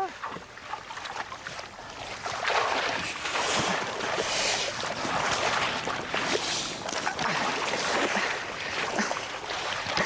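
Shallow muddy water splashing and sloshing as a large African python is wrestled and dragged out of it, in uneven surges. It is quieter for the first two seconds or so, then louder and busier.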